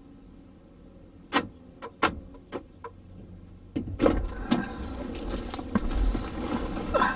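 Heard from inside a car: several sharp clicks, then, about four seconds in, the driver's door opens and a person climbs into the seat, with clothing rustling and knocks against the car.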